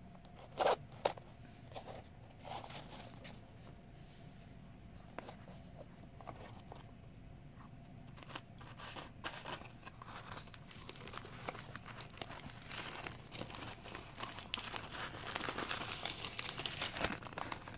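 Tissue paper rustling and crinkling as it is pulled out and unfolded from a small gift box, busier in the second half. Two sharp clicks just under a second in.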